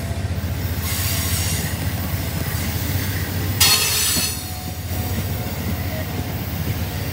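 Amtrak stainless-steel passenger cars rolling past close by: a steady low rumble of wheels on rail, broken by a few short bouts of high hissing squeal as the wheel sets go by. The loudest comes with a sudden jump about three and a half seconds in.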